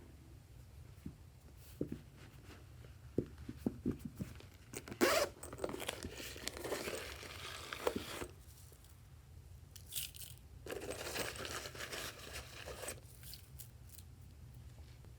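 Glossy slime being worked by hand: a few soft sticky pops at first, then two long stretches of wet crackling and tearing as the slime is pulled and squeezed.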